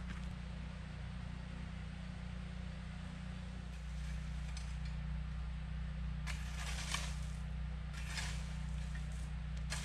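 Rake scraping and dragging through loose gravel: a few short scratchy strokes in the second half, over a steady low hum.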